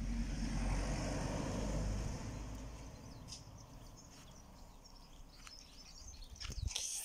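Outdoor background noise: a low rumble that fades away over the first two to three seconds, with faint bird chirps and a few short knocks near the end.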